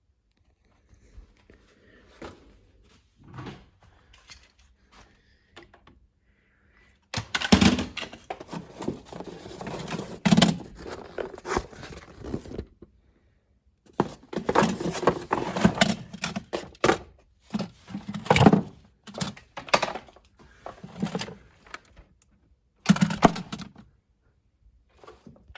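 Irregular handling noise in a small room: scattered knocks, clicks and rustling, faint at first, then in louder clusters from about seven seconds in, with short quiet gaps between them. No alarm sounder is heard.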